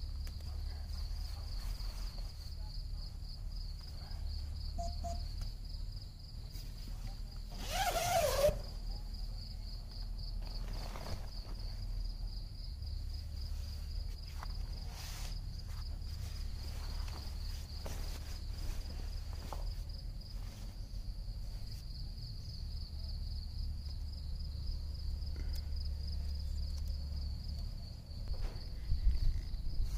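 Steady insect chorus, a high, fast-pulsing trill, over a low rumble. A brief louder sound cuts in about eight seconds in.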